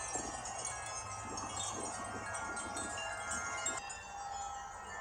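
Wind chimes ringing in the wind, many tones sounding and overlapping at once, the strikes easing off a little about four seconds in.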